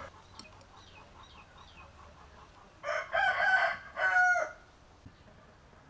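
A rooster crowing once, about three seconds in, its last note falling away. Faint small bird chirps come before it.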